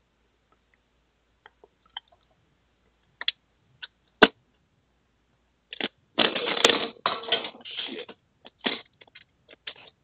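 Computer keyboard and mouse in use: a few scattered clicks, a sharp one about four seconds in, then a fast clatter of typing from about six seconds in.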